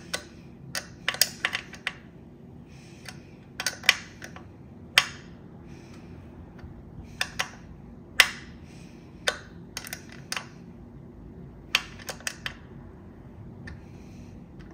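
Small open-ended wrench tightening the hose flare nut on a Dura-Ace hydraulic disc brake caliper: irregular sharp metallic clicks as the wrench is set on the nut, turned and repositioned, some in quick clusters, over a faint steady hum.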